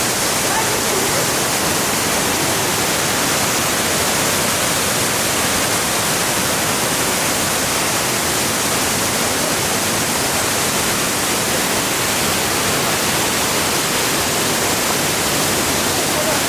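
Laoyue Waterfall's water falling, heard from an alcove just behind the curtain of water: a loud, steady rush with no break.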